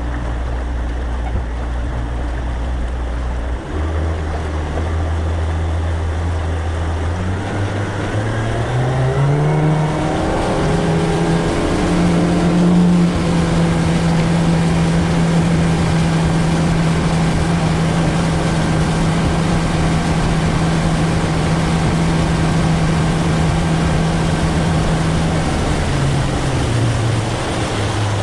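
Boat motor speeding up a few seconds in, its pitch rising as it reaches cruising speed, then running steadily before throttling back near the end.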